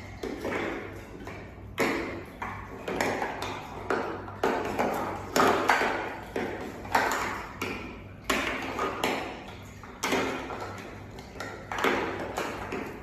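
Hard plastic pipe pieces knocking and clattering against a glass tank edge as otters handle them. Sharp, ringing knocks come about one or two a second, unevenly spaced.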